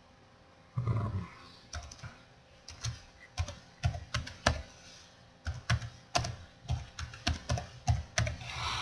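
Typing on a computer keyboard: slow, uneven keystrokes, roughly two a second, with a louder low thump about a second in.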